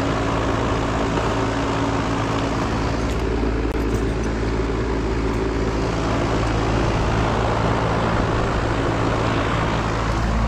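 Outdoor air-conditioner condensing unit's fan running steadily, a constant hum with a rush of air, while the compressor is not running, a fault traced to a failed capacitor.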